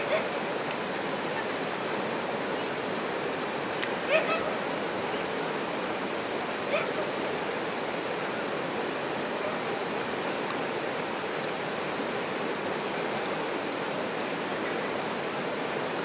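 River rapids rushing steadily over rocks. Three brief animal cries, a few seconds apart, come over the water in the first half.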